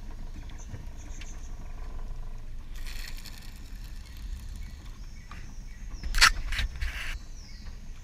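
A low steady rumble of wind on the microphone, a short hiss about three seconds in, and a cluster of sharp clicks and knocks about six seconds in, the loudest sound here, from gear being handled in a small aluminium fishing boat.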